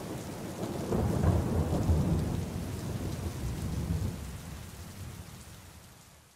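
Thunderstorm sound: steady rain hiss under a long roll of thunder that swells about a second in and slowly dies away.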